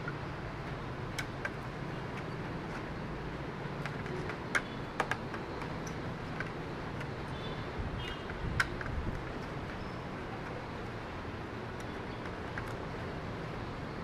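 A screwdriver loosening the CPU heatsink screws on a laptop motherboard: scattered small sharp clicks and taps of metal on metal, over a steady low background hum.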